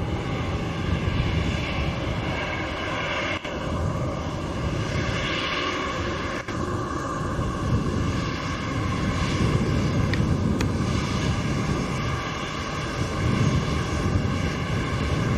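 Airbus A319 corporate jet's engines running as it rolls along the runway: a steady jet whine over a low rumble.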